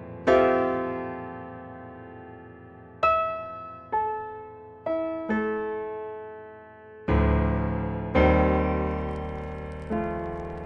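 Slow, soft piano music: single notes and chords struck every second or two, each left to ring and die away.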